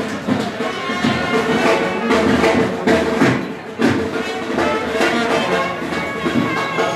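Band music with brass horns holding notes over a regular drum beat.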